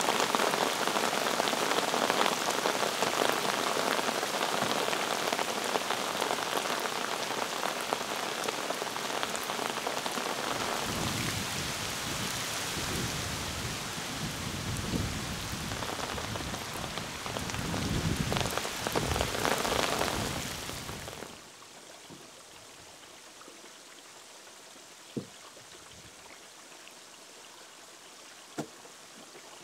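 Heavy rain falling steadily on a pond, with low rumbles of thunder through the middle. About 21 seconds in the rain cuts off suddenly to a quiet background, broken by two sharp knocks near the end.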